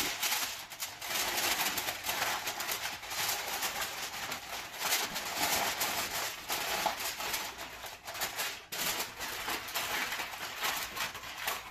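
Aluminium foil crinkling and crackling as a sheet is laid over a baking dish and its edges are crimped down by hand, a steady run of small crackles.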